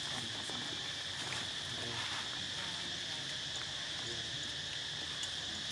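Steady chorus of forest insects: a continuous, even high-pitched drone.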